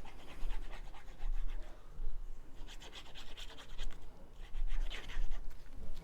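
Cardstock pieces rubbing and scraping against each other and the table as they are handled and pressed together, in three short scratchy bursts.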